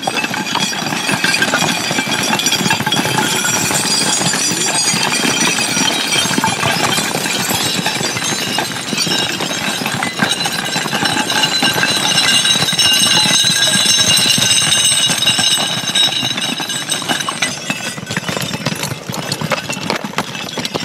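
A two-stroke chainsaw running at high speed without a break, its whine strongest about midway through and easing a little near the end.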